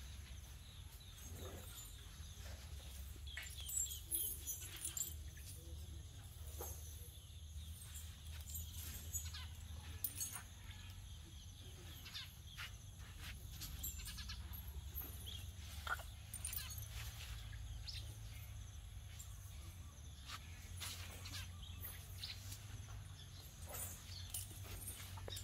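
Outdoor ambience: a steady low rumble with scattered light clicks and knocks, and now and then a faint animal call.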